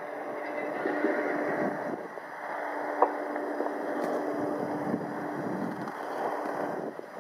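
Piper PA-28 Cherokee's single piston engine and propeller running at takeoff power, heard from far off. A steady drone swells and then eases off near the end, with a single sharp click about three seconds in.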